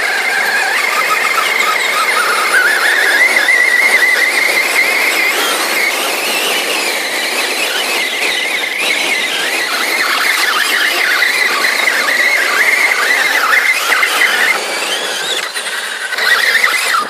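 Two electric RC monster trucks, a Traxxas Summit and an E6 Trooper II, whining at full throttle as they strain against each other on a tow rope. The high motor-and-gear whine wavers up and down in pitch as their wheels spin in the dirt.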